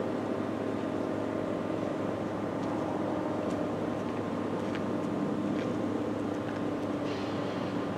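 ACA Super Banshee outdoor warning siren sounding a steady, unchanging tone during its one-minute noon blast.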